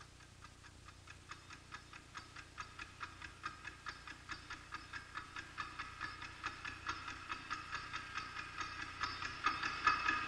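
Steady clock-like ticking, about four ticks a second, each tick sharp with a slight metallic ring, growing gradually louder.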